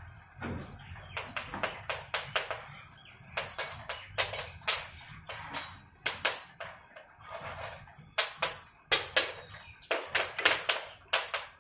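Goods train wagons rolling past, wheels clacking on the rails in quick groups of clicks every second or two over a low rumble.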